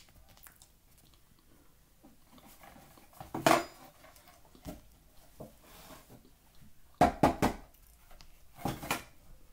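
Eating cornstarch straight from a paper bag: the bag crinkles as it is tipped up to the mouth, in a few short, loud bursts, the loudest about three and a half seconds in, a quick cluster around seven seconds and another near the end.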